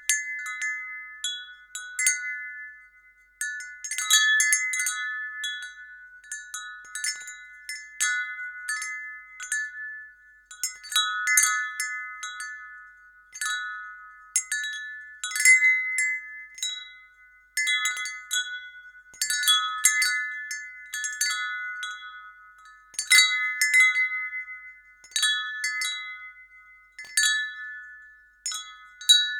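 Wind chime ringing irregularly, its tubes struck in clusters that ring out at a handful of fixed pitches and fade before the next gust of strikes.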